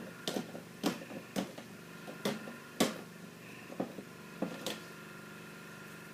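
Irregular plastic clicks and knocks as printer parts are handled and set down. The loudest knock comes near the middle, and they stop a little before the end.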